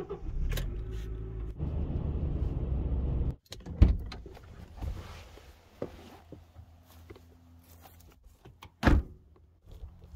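Honda Element's four-cylinder engine running, growing louder about a second and a half in, then stopping abruptly. A car door then clunks open, and another clunk near the end is the door shutting.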